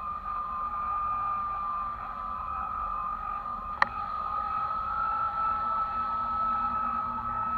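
Wind rumbling over the microphone of a kite-borne camera, with a steady high whine throughout and one sharp click a little under four seconds in.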